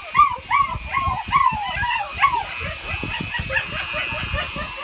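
Eight-week-old German Shepherd puppy yelping and whining in a rapid string of short, high, arching cries, about three a second, fading to fainter whimpers after the first couple of seconds. The cries are the puppy protesting being held still for a nail trim.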